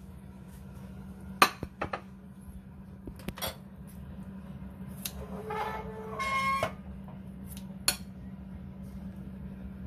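Kitchen scissors cutting slices of boiled pork on a ceramic plate, with several sharp metallic clicks and clinks of the blades. A short squeaky tone sounds about midway, over a steady low hum.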